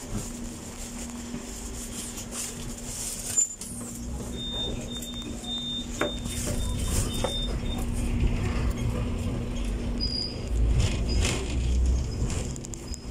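Hong Kong double-decker electric tram running along its street rails, heard from inside the lower deck: a low rumble with a steady hum. There is a single knock about three and a half seconds in and a run of short high beeps a little after. The rumble grows louder about ten seconds in.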